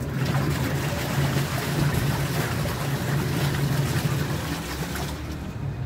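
Steady low mechanical hum with a rushing noise over it.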